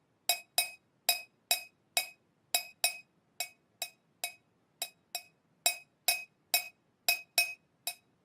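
A small hard object struck over and over, two to three light taps a second at a slightly uneven pace, each tap with a brief clear ringing note of the same pitch.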